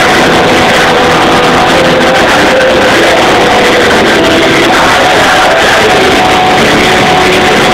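Rock band playing live, loud and flat-out throughout, recorded from the audience at a concert.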